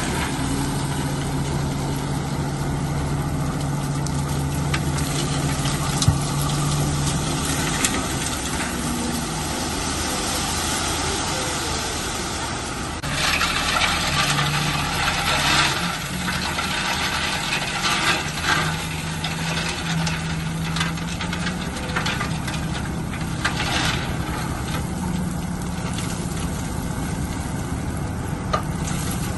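Bulldozer's diesel engine running under load, its note stepping up about halfway through. A louder, rougher noise runs for a few seconds in the middle, with scattered clicks throughout.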